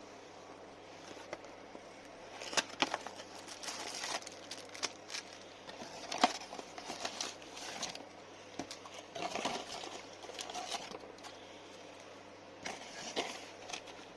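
Irregular clicks, light knocks and rustling, as of small objects being handled, over a faint steady low hum.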